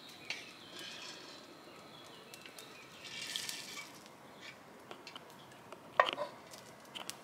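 Freshly roasted coffee beans tipped out of a hot clay roasting dish. A brief rattling rush comes about three seconds in, with a few faint sharp clicks scattered through.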